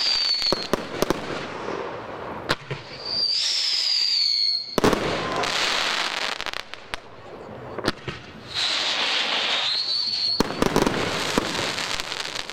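Fireworks going off: sharp bangs from bursting shells, three whistles that each screech for a second or two while gliding in pitch, and dense crackling from crackling stars between them.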